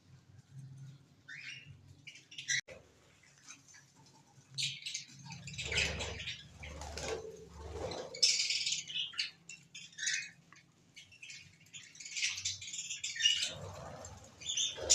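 Small cage birds chirping in short high calls, with bursts of wing flapping about five seconds in and again near the end.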